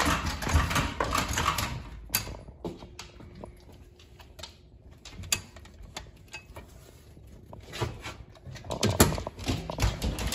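Dogs moving about at a pet door panel: quick claw clicks and scrabbling with knocks against the door, loudest in the first two seconds and again near the end.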